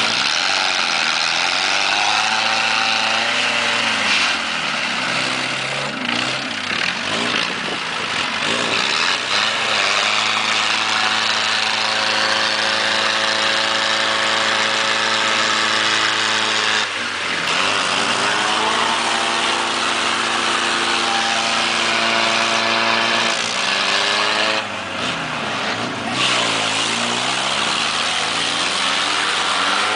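Engine of an off-road 4x4 working hard through rough, muddy ground, its pitch dropping and climbing again several times as the revs change, over a steady hiss.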